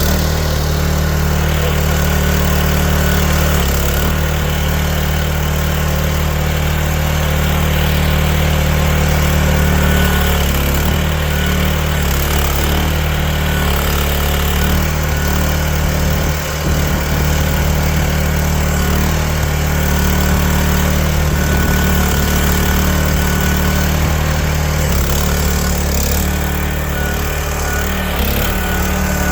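Small engine of a compact machine running steadily at a constant speed, with a brief dip in loudness about halfway through.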